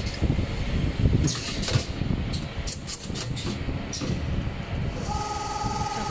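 Automatic armature winding machine running: a steady mechanical clatter with a low rumble and a series of sharp clicks and short hisses. About five seconds in, a steady high tone starts and holds.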